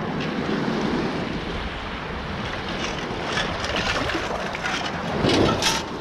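Wind buffeting the microphone over choppy shallow water lapping around wading legs, with a short splash near the end.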